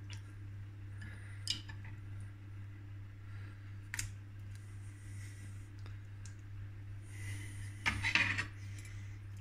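Light clinks and taps of a frying pan and cookware on a gas hob as salmon fillets are laid in the pan, with a louder brief clatter about eight seconds in, over a steady low hum.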